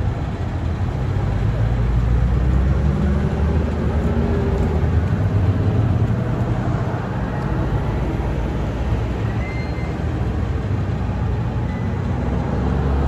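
Road traffic going by: a continuous, steady low rumble of car engines and tyres.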